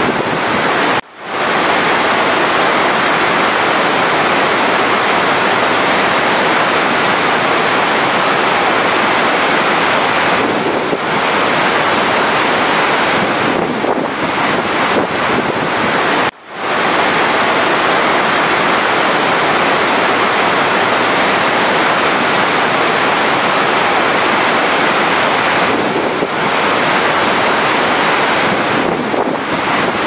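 Large waterfall: a steady, loud rush of falling water. It cuts out for an instant about a second in and again about halfway through.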